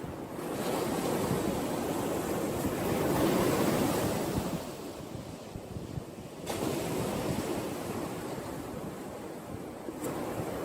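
Ocean waves surging and washing in, building about three to four seconds in, easing, then surging again suddenly a little past halfway.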